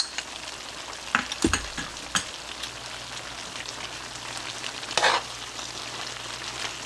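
Pork, vegetables and teriyaki sauce sizzling in a cast iron wok as a cornstarch slurry goes in to thicken the sauce. A metal spatula stirs through the food, clinking and knocking against the pan a few times, with one louder scrape about five seconds in.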